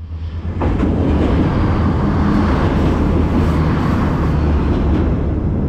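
Blue-and-white regional passenger train crossing a steel truss bridge close by: a loud, steady rumble of wheels and running gear that builds over the first half second and then holds.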